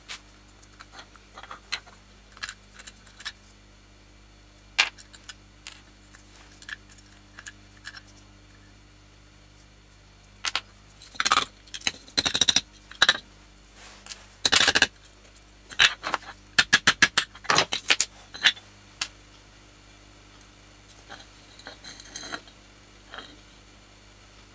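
Sharp metallic taps and clinks as the mining lamp's metal housing is worked against an anvil while its dents are leveled. A few light taps come first, then louder clusters past the middle, including a quick run of about eight even taps, and a few faint taps near the end.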